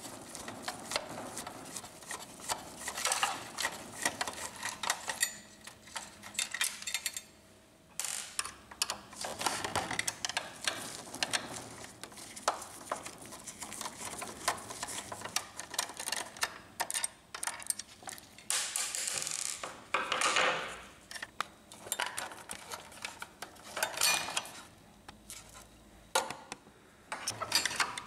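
Small screwdriver working the screws of an Epson XP-2100 inkjet printer's sheet-metal main board shield: irregular clicks, taps and scrapes of metal on metal and plastic as screws are turned out and parts handled, with a longer scraping sound about two-thirds through.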